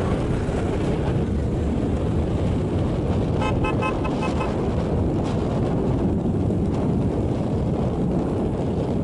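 Wind on the microphone of a moving camera, a steady low rumble. About three and a half seconds in, a vehicle horn sounds in a quick string of short beeps lasting about a second.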